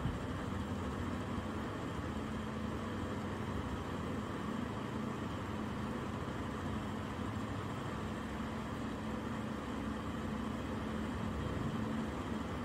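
Drag-race cars' engines running steadily while staged at the starting line, a low, even engine note with no revving.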